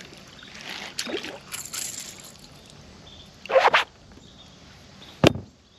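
A few brief splashes and drips of water, with a single sharp knock near the end.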